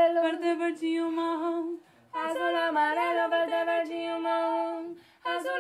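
A single voice humming a melody without accompaniment, holding long steady notes. It pauses briefly about two seconds in and again near the end.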